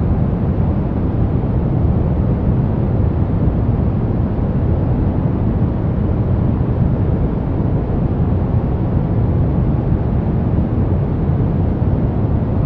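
Brown noise: a steady, even rumbling hiss, heaviest in the low end and fading toward the highs.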